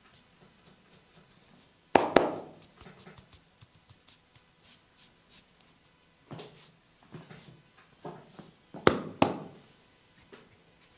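Hands working a head massage: two pairs of loud, sharp impacts, one about two seconds in and one near nine seconds, each pair a fraction of a second apart, with softer taps in between.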